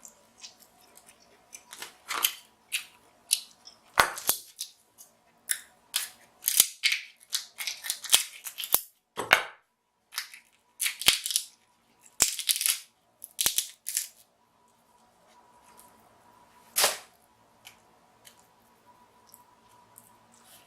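King crab leg shells cracking and snapping as they are broken open: an irregular run of sharp cracks for about twelve seconds, then one more a few seconds later.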